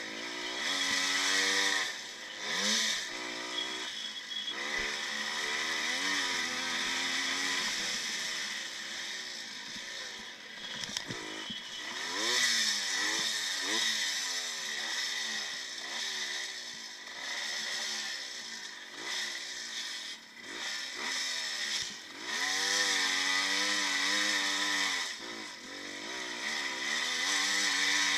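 1955 Maico two-stroke single-cylinder motocross bike racing, heard from on board: the engine revs up and falls off again and again as it is ridden through the gears, over jumps and round turns.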